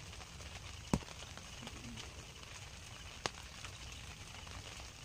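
Quiet rural waterside ambience: a faint, steady, high pulsing chirr under a low rumble, broken by two sharp clicks, one about a second in and another a little past three seconds.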